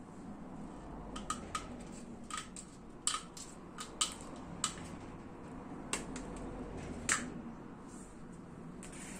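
Tin snips cutting thin steel wire grill mesh: about a dozen sharp snips at irregular spacing as individual wires are cut through.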